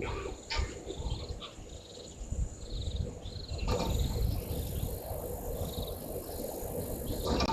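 Outdoor waterhole ambience: a steady low rumble of wind on the microphone with faint short bouts of high, rapidly repeated chirps, and one sharp click about halfway through.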